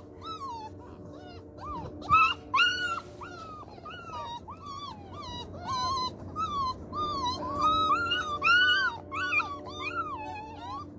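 A litter of five-week-old chocolate Labrador retriever puppies whining and yelping: many short cries that rise and fall, overlapping almost without pause.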